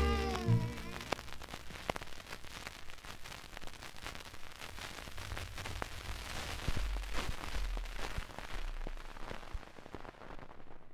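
The last held note of a 78 rpm shellac record dies away about a second in, leaving the stylus running in the run-out groove with surface crackle, scattered clicks and low thumps that fade near the end.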